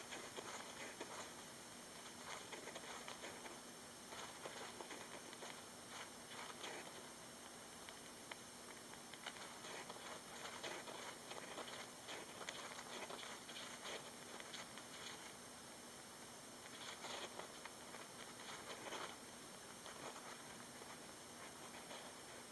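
Roborovski dwarf hamster digging in sand: quick bouts of faint scratching and pattering sand that stop and start every few seconds, over a steady hiss and a faint hum.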